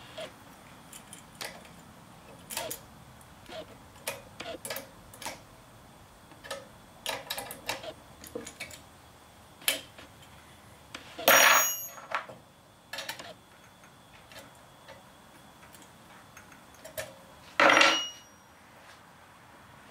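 Hand wrenches clicking and clinking on a metal robot spine joint as the nut on its threaded rod is tightened: scattered small clicks, with two louder metallic clanks that ring briefly, about 11 and 18 seconds in.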